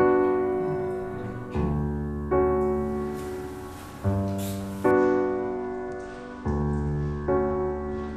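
Slow solo piano music: soft chords struck and left to ring out, a new one every second or two.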